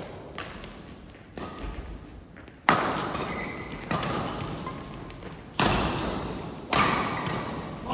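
A shuttlecock being struck back and forth in a rally, with a string of sharp hits about a second or so apart, each ringing on in a reverberant hall. The hits about three seconds and five to seven seconds in are the loudest.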